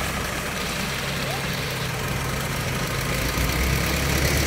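Kubota combine harvester's diesel engine running steadily as the tracked machine crawls over a muddy bank. About three seconds in, the engine note deepens and grows a little louder.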